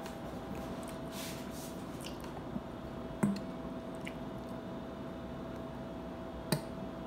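Metal spoon clinking twice against a stainless steel bowl during eating, with soft wet eating sounds, over a steady background hum.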